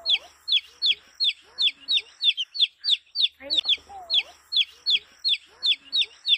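Baby chicks peeping: a steady stream of short, high, falling peeps, about three a second, with softer, lower calls mixed in every couple of seconds.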